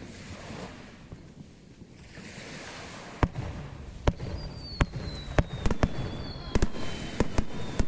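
Aerial fireworks shells bursting: a quick irregular run of about ten sharp bangs starting about three seconds in. A thin high whistle slowly falls in pitch through the second half.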